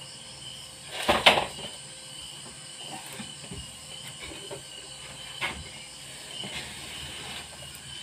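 A short burst of knocks and rattles against plywood wall panels about a second in, then a few lighter knocks, over a steady hiss.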